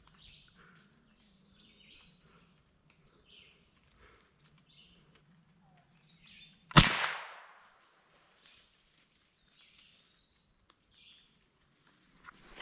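A single rifle shot about seven seconds in, a sharp crack that trails off for about a second in the woods. Around it, insects keep up a steady high-pitched drone and birds chirp now and then.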